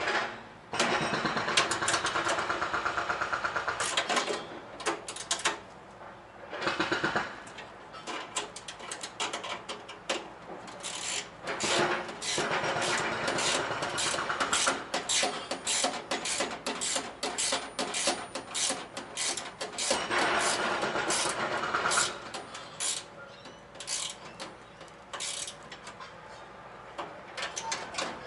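Handheld power tool run in several bursts of a few seconds each, with a fast, buzzing pulse, between sharp clicks and clanks of metal parts, as holes are drilled and bolts run in for a mounting plate.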